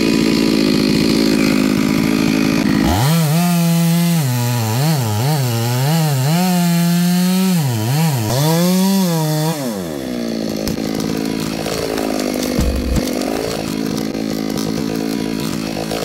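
Stihl chainsaw cutting wood: the engine runs steadily, then from about three seconds in its pitch dips and recovers again and again as the chain bogs under load in the cut, and after about ten seconds it drops quieter.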